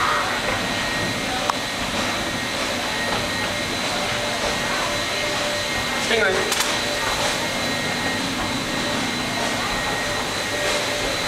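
Steady rushing background noise with a faint high whine in it, with a brief faint voice about six seconds in.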